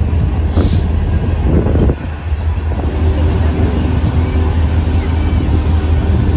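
Freight train of covered hopper cars rolling past close by: a steady low rumble of steel wheels on the rails, with a brief hiss less than a second in.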